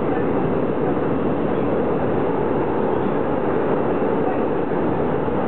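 AREX 2000 series electric train of the Incheon airport rail line, heard from inside the passenger car while running: a steady, even running noise with no distinct clicks.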